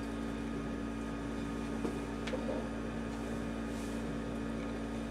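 Steady low hum of a CleanStation SRS-DT3 support-removal tank running, with a couple of faint clicks about two seconds in as parts are handled in its lifted basket.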